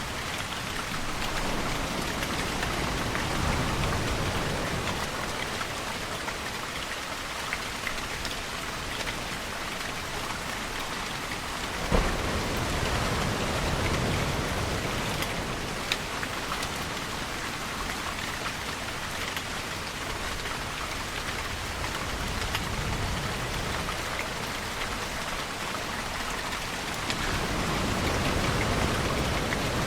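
Steady rain falling, an even hiss, with a deeper low swell rising and fading a few times. A single sharp crack stands out about twelve seconds in.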